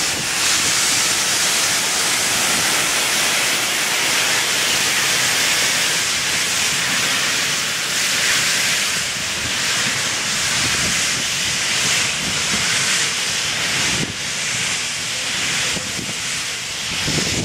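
Southern Railway U class 2-6-0 steam locomotive starting away with its cylinder drain cocks open: a loud, steady hiss of escaping steam.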